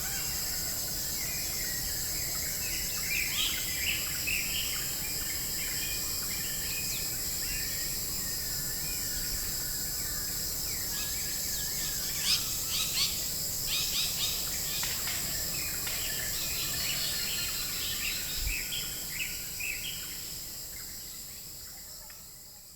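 Forest ambience: a steady high insect drone with many birds chirping and calling over it, in busier flurries now and then. It all fades out near the end.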